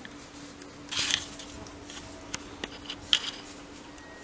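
Brief rustles of leaves and plants being brushed, twice, with a few light clicks, as someone moves through dense garden vegetation; a faint steady hum runs underneath.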